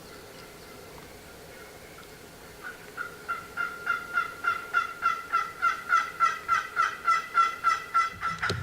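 A long, evenly spaced series of turkey yelps, about four a second, starting faint and swelling louder. A sharp knock near the end.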